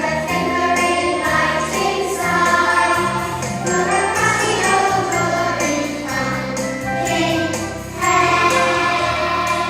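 Music: a choir singing held notes over an accompaniment, with a light jingling percussion.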